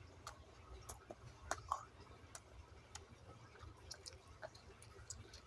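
Faint chewing and mouth clicks of someone eating a burger, close to the microphone, with a couple of louder clicks about a second and a half in.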